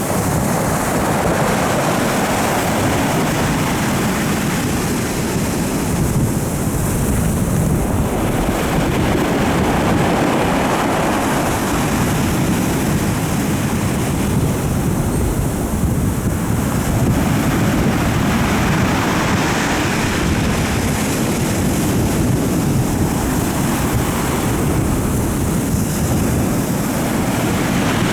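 Stormy sea surf breaking, with strong wind blowing across the microphone: a steady, loud noise that swells and eases every several seconds.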